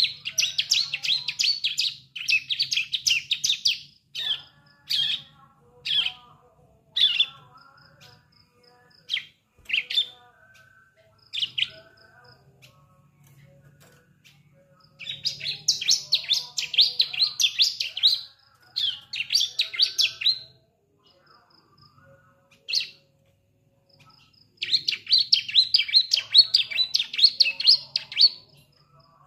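Juvenile bar-winged prinia (ciblek) practising its song: three runs of rapid, high chattering notes, each a few seconds long, near the start, in the middle and near the end, with single short calls and pauses between them. It is a young bird just beginning to learn its song.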